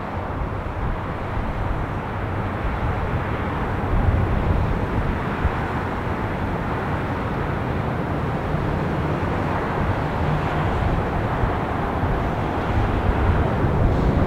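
Jet engine noise from Spirit Airlines airliners on the runways, one landing and one taking off: a steady rush that grows louder about four seconds in.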